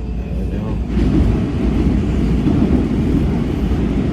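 Washington Metro train running along the track, heard from inside the car: a steady rumble that grows louder about a second in.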